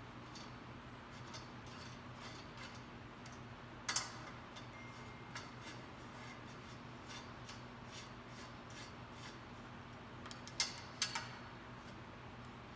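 Light clicks and taps of metal parts being handled and adjusted, with a sharper clink about four seconds in and two more close together near the end, over a steady low hum.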